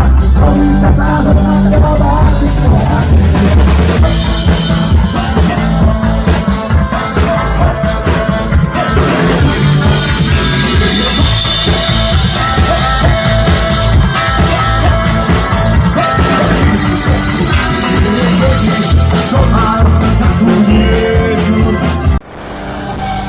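Live punk rock band playing, loud and distorted, with drum kit, guitars and some singing, cutting off abruptly near the end.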